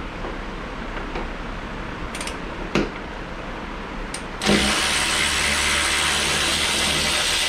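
A few light clicks, then a power tool runs steadily for about three seconds on the door hinge bolts, starting and stopping suddenly with a loud hiss over a low hum.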